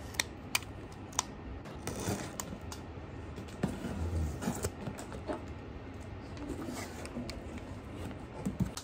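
Cardboard delivery box being opened by hand: scattered sharp clicks and scrapes of cardboard and packing tape, with rustling of the plastic-bagged contents as they are lifted out near the end.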